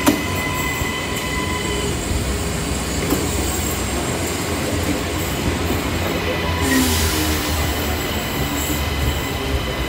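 Commuter train running with a steady low rumble and a high, even whine, with a brief hiss about seven seconds in.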